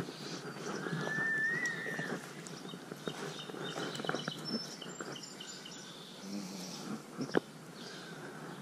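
Outdoor ambience with birds chirping over a steady background hiss: a thin rising whistled note about a second in, faint high chirps in the middle, and a few sharp clicks, the clearest near the end.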